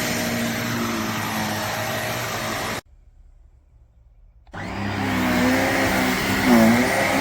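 Handheld mattress vacuum's motor running steadily. It cuts off abruptly just under three seconds in, leaving nearly two seconds of near silence, then starts running again abruptly.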